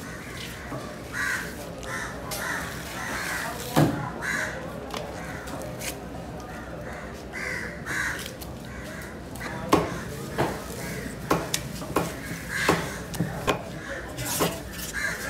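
Crows cawing again and again, with sharp knocks of a large knife chopping through tuna on a wooden block: one about four seconds in and a quick run of chops in the second half.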